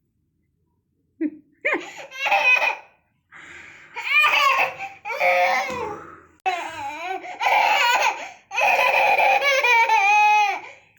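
A baby laughing in bursts of rapid, high-pitched giggles and belly laughs, starting about a second in after a moment of silence.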